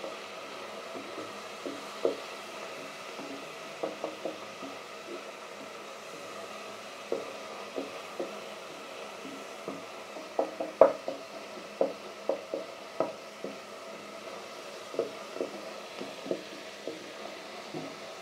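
Chopped onions and coriander leaves sizzling steadily in oil in a stainless steel pot, while a spatula stirs them and knocks irregularly against the pot, with a bunch of louder knocks about ten to thirteen seconds in.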